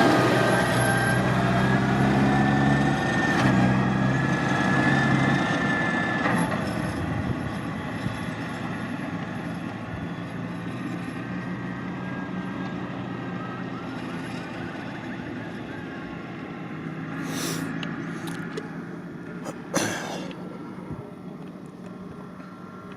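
A motor vehicle engine running, loudest at first and fading away over the first several seconds, with a sharp knock near the end.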